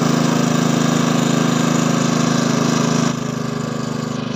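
Small engine running steadily at a constant speed, with a strong low hum. A little after three seconds in it becomes quieter and duller.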